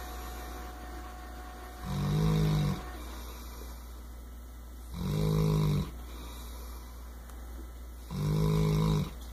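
English Mastiff snoring in her sleep: three snores about three seconds apart, each lasting under a second.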